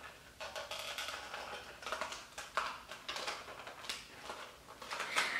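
Long fingernails clicking and scratching on a small cardboard product box while prying at its sealed flap: a run of irregular small clicks, taps and crinkles.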